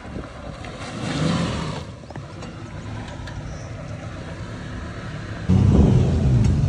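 Maruti Gypsy's petrol engine working under load on an off-road climb, running steadily, then revving up and getting suddenly louder about five and a half seconds in.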